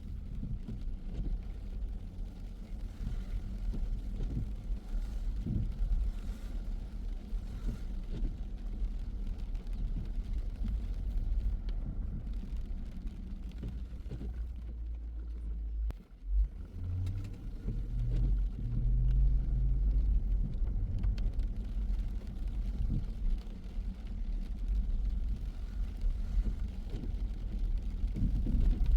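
A car driving: a steady low rumble of engine and tyres. About halfway through the sound briefly drops out and jolts, then a low engine tone rises and holds for a few seconds.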